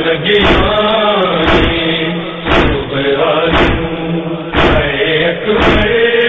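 A man's voice chanting a Shia noha lament over steady chest-beating (matam) slaps, about one a second.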